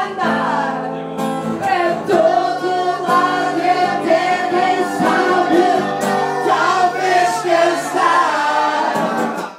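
Music with several singing voices over sustained instrumental notes, breaking off briefly near the end.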